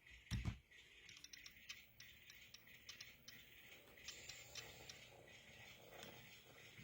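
Near silence with faint, irregular light clicking while a small N-scale model locomotive moves cars slowly. A dull thump comes about half a second in.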